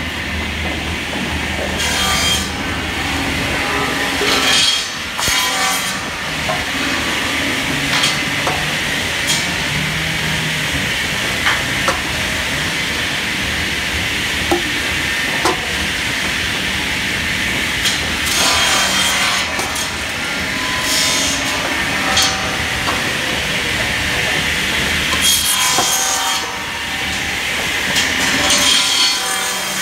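Tractor-driven rotary drum firewood saw running, its blade cutting split logs into short pieces over and over. Each cut is a rasping burst every few seconds above the steady running of the machine, with a few sharp knocks of wood against the drum.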